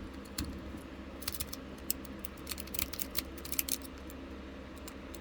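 A rake pick working in and out of the keyway of a Rhino USA 5/8 hitch pin lock under light tension, making quick, irregular small metallic clicks and scrapes as it jostles the pins.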